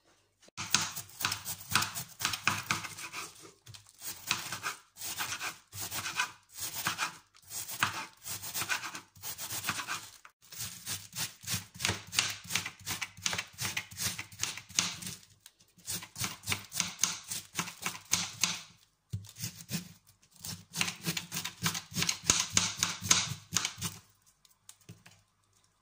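Knife shredding a white cabbage on a plastic cutting board: quick, even slicing strokes in runs of several seconds, broken by short pauses.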